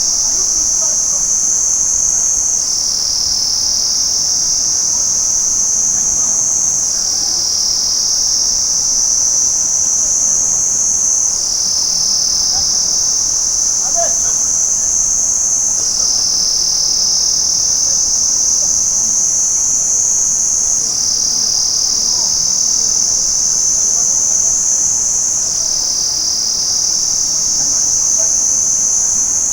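Crickets chirping in a steady, high-pitched continuous trill, its pitch stepping slightly up and down every four or five seconds.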